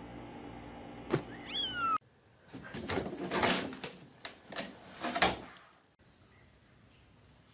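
A kitten meows once, a short call that rises and then falls in pitch, just after a sharp click about a second in. After that comes a louder stretch of rough, noisy sounds lasting about three seconds.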